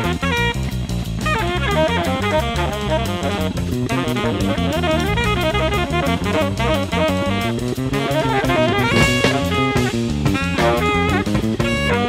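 1970s jazz-fusion band recording: drum kit with cymbals and bass under fast, busy melodic runs led by saxophone, with some held notes near the end.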